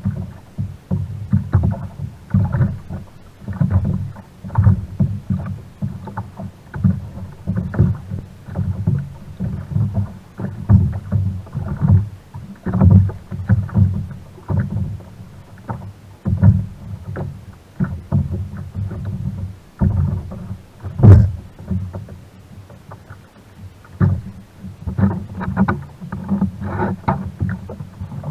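Small waves slapping against the plastic hull of a sit-on-top kayak, heard as irregular low thumps and knocks, with one sharper knock about three-quarters of the way through.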